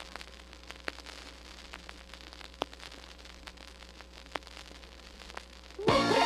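Vinyl LP surface noise in the blank groove between tracks: faint crackle with a few sharp pops over a steady low hum. Disco music starts near the end.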